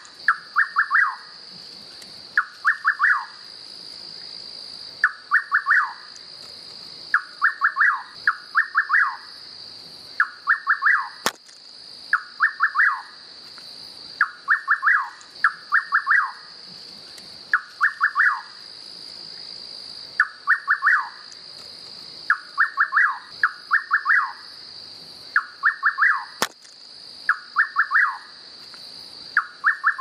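Rufous nightjar (João-corta-pau) singing its song over and over: short phrases of a few quick notes, the last one sliding down in pitch, given every second or two and often in pairs. A steady high buzz runs behind.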